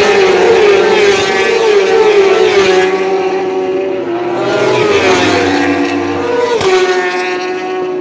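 A pack of 1000cc superstock racing motorcycles at full throttle, approaching and passing. The engine notes climb and drop back in steps as the riders change up through the gears, and one bike's note drops sharply in pitch as it goes by about two-thirds of the way through.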